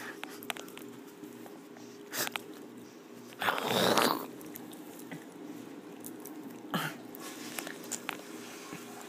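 A puppy mouthing and nuzzling right at the phone, with scratchy rubbing and small clicks of fur and teeth against the microphone. There is a louder rustling scrape about three and a half seconds in, over a faint steady hum.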